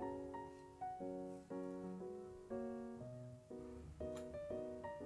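Gentle background piano music, notes and chords struck about twice a second, each fading away before the next.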